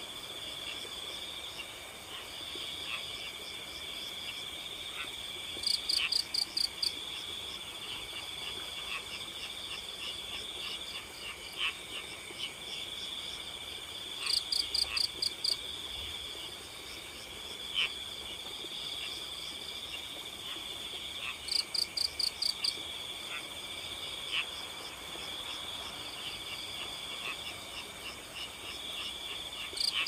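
Night chorus of crickets trilling steadily, with a louder burst of five or six rapid pulsed chirps about every eight seconds and scattered short calls in between.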